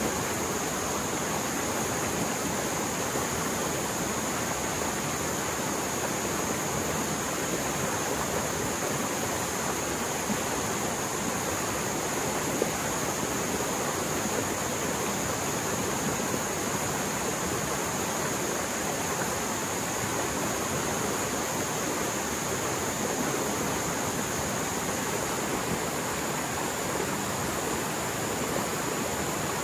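Mountain stream in flood after heavy rain, fast water roaring steadily.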